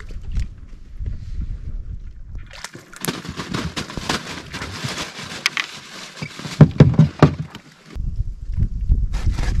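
Knocking, rattling and handling noises in a small fishing boat as a fish is brought in, with the loudest knocks about two-thirds of the way through. A low wind rumble on the microphone is heard at the start and end.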